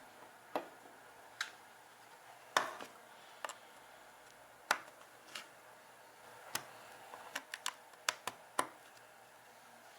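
Small hard plastic parts being handled: about a dozen sharp, irregular clicks and taps, with a quick run of them a little past halfway.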